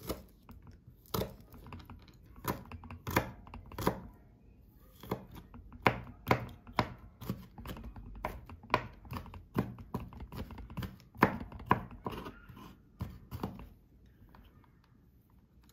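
Kitchen knife chopping garlic on a white plastic cutting board: a series of sharp knocks of the blade on the board, about one or two a second and quickest in the middle, stopping shortly before the end.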